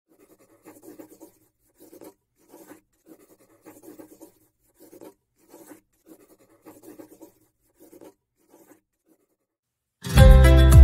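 Scratchy strokes of drawing on paper, short and repeated about once or twice a second, thinning out and stopping. Music then starts loudly just before the end.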